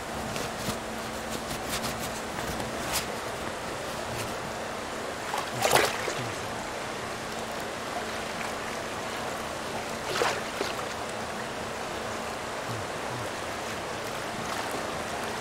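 Stream water running steadily, with two splashes, the first and louder about six seconds in and another about ten seconds in, as a Eurasian otter slips into the water and swims. A few faint clicks come in the first three seconds.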